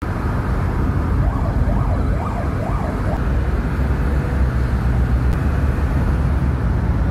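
Steady low road and engine noise inside a moving car's cabin. About a second in, a faint siren rises and falls about four times in quick succession.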